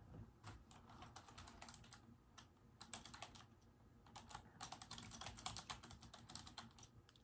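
Mechanical keyboard being typed on in quick runs of soft clicking keystrokes, with short pauses between the runs.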